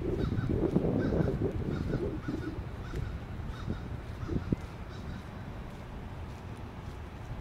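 A bird calling in a quick run of short, repeated notes over the first few seconds, above a low outdoor rumble that eases after about two seconds.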